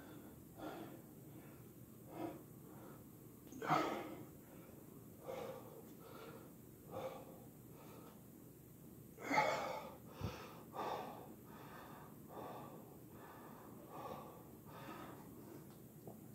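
A man breathing hard after a set of push-ups, winded from the exertion: heavy breaths and gasps every second or two, with two louder ones about four and nine seconds in.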